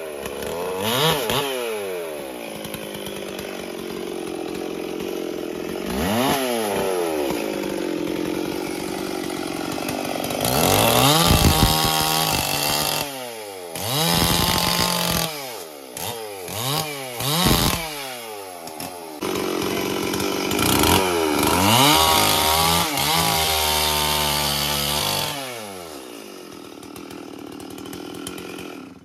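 Stihl MS 440 two-stroke chainsaw cutting up a felled tree trunk. It revs up and drops back again and again, with two long stretches held at full throttle in the cut, then settles to idle near the end.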